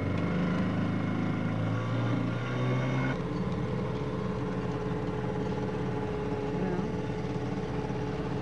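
Catalina 27 sailboat's auxiliary engine running in reverse while backing out of a slip. Its revs rise over the first three seconds, then it changes abruptly to a steadier, higher note.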